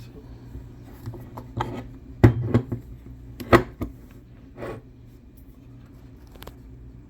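Manual 4x4 locking hub being handled as it is taken apart: metal parts rubbing, clicking and knocking, with two louder clacks in the middle, over a steady low hum.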